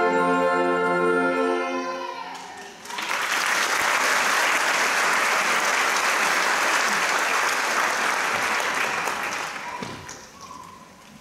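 A school wind band with brass and percussion holds a final chord that stops about two seconds in. Loud audience applause follows and fades away near the end.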